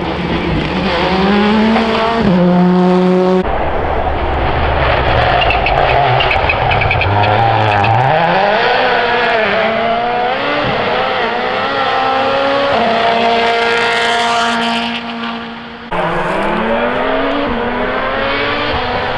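Modern turbocharged rally cars driven hard on tarmac. The engines rev up and drop in pitch at each gear change, in several separate passes cut one after another.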